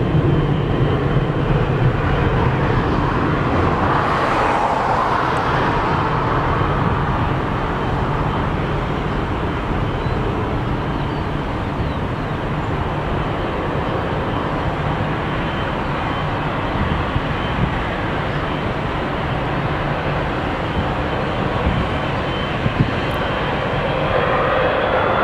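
Boeing 777-200F's GE90 turbofan engines running on the runway: a steady jet rumble and hiss. Near the end a whine starts rising as the engines spool up for the takeoff roll.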